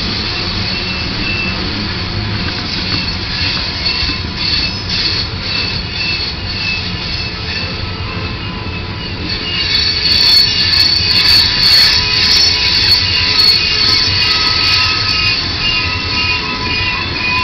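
Freight train tank cars rolling past, their wheels squealing in several steady high tones over the rumble. About ten seconds in the squeal grows louder, with a run of sharp clicks.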